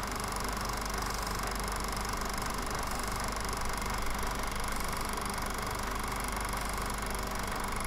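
Film projector running: a steady whirring hum with hiss, unchanging throughout.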